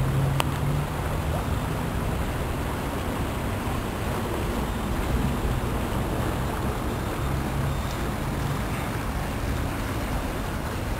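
Shallow stream rushing steadily over its stony bed, with a little wind on the microphone. A faint low hum comes in near the start and again about seven seconds in.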